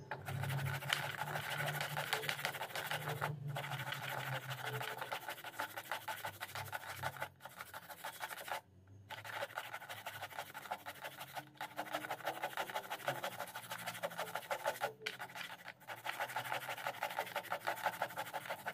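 Peeled cassava being rubbed up and down a hand grater, a quick rasping scrape repeated about three or four strokes a second, broken by several short pauses.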